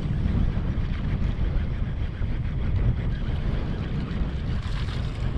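Wind buffeting the microphone, a steady low rumble that rises and falls slightly.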